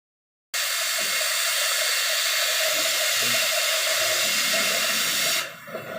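A cutting torch's jet hissing steadily and loudly while cutting a bevel, starting abruptly and dropping to a quieter hiss about five and a half seconds in.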